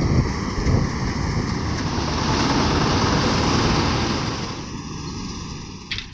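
Combine harvester running through wheat, a steady dense machine rumble with a rushing hiss, easing off a little near the end.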